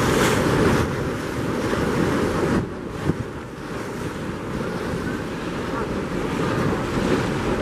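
Wind buffeting the microphone on a moving boat, with choppy water splashing and rushing past. It drops back for a moment about two and a half seconds in.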